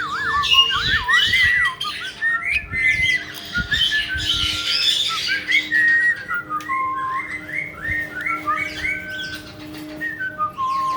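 Caique parrots whistling and chattering: a quick, continuous string of short rising and falling whistled notes, with rougher chirps mixed in.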